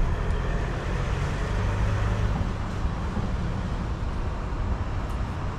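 Heavy vehicle engine idling, a steady low rumble.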